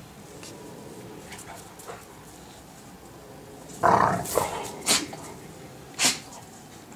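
Dogs at play: quiet at first, then a loud growling bark about four seconds in, followed by three short, sharp barks.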